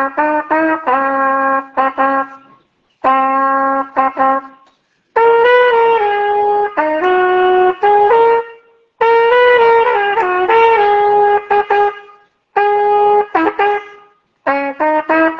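Trumpet played solo: a melody in phrases of several notes each, quick short notes mixed with longer held ones, broken by brief pauses between phrases.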